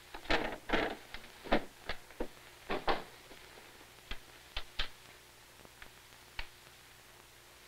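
An irregular run of about a dozen short, sharp clicks and knocks, closely packed in the first three seconds and sparser after, over a faint steady hum.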